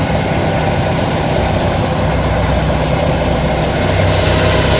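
A large engine running steadily, a continuous low hum with even loudness.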